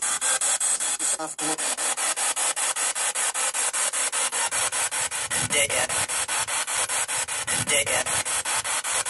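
Spirit box sweeping through radio frequencies: a hiss of static chopped into rapid, even pulses several times a second. Brief snatches of broadcast sound break through twice in the second half.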